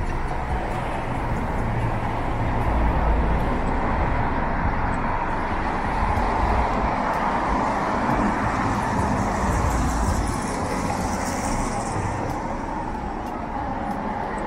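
City street traffic: cars driving past, a steady rumble of engines and tyres on the road.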